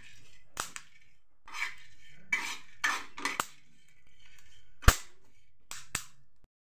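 A metal spoon stirring melon seeds as they dry-roast in a metal frying pan: a run of short scraping strokes against the pan, with a few sharp clinks, the loudest about five seconds in.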